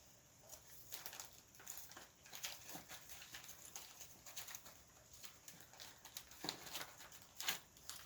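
Faint rustling and light tapping of paper pieces being handled and sorted by hand, with a couple of sharper clicks near the end.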